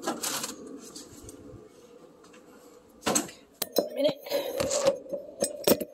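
Kitchen handling noise at the refrigerator as milk is fetched: items clink on the shelves, there is a louder knock about three seconds in, then more clinks and rustling.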